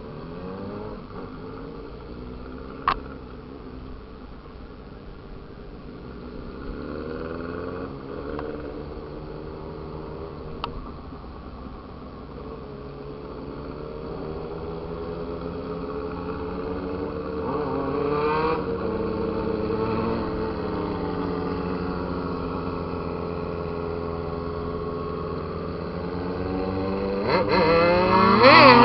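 Motorcycle engines revving, their pitch rising and falling again and again. They grow louder over the stretch, with a steep, loud rev near the end. A sharp click sounds twice.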